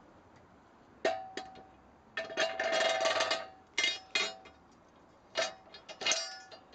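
Metal parts clanking together with a bell-like ring: a couple of sharp clanks about a second in, a quick rattling run of clinks over the next second or so, then more single clanks toward the end.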